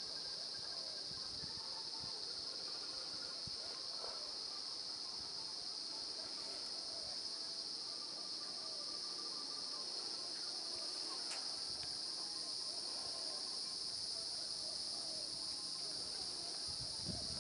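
A steady, high-pitched insect chorus, droning without a break.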